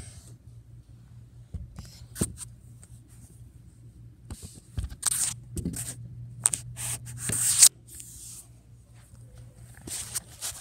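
Handling noise from a phone being moved around and covered: rustling and scraping with a few knocks, the loudest scrape about seven and a half seconds in.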